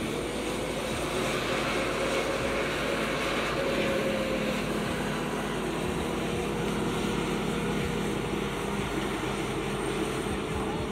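Diesel engine of a truck-mounted crane running steadily while it holds a sailboat in lifting slings, a continuous even drone.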